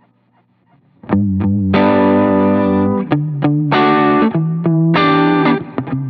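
Electric guitar played through a Fulltone Custom Shop Mini Deja Vibe (CS-MDV mkII), a Uni-Vibe-style chorus/vibrato pedal, switched on, with a Line 6 HX Stomp in the chain. It is quiet for about the first second. Then come a couple of short plucked notes and a run of ringing chords that change every second or so.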